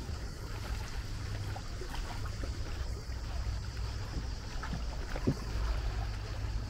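A steady low rumble with faint scattered ticks and one short thump a little after five seconds in.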